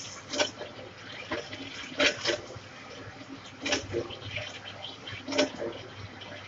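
Metal lathe turning a large steel pipe. A sharp knock comes at a steady interval of about one and a half to two seconds, four times, over a steady hum and hiss.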